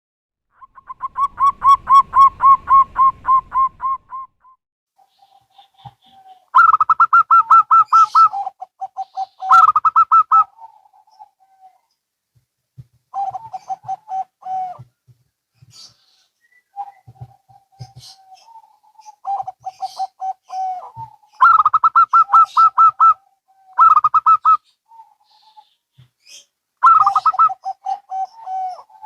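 Zebra doves (perkutut), local and Bangkok types, cooing back and forth. Each song is a phrase of a few seconds made of quick, staccato coos, and the phrases follow one another with short pauses between.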